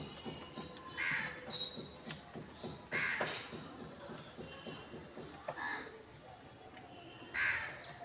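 A crow cawing: four loud caws spaced about two seconds apart. Short high chirps from house sparrows come in between.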